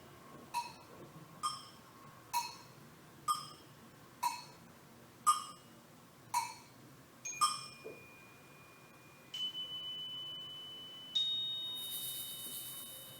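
Struck metallic chime tones, one about every second, each ringing briefly and fading. They give way to three long ringing tones, each higher than the one before, the last with a bright shimmer over it.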